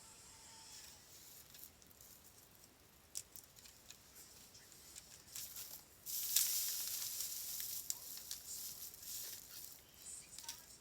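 Faint handling sounds: scattered light clicks, then a hiss that starts suddenly about six seconds in and fades over the following few seconds.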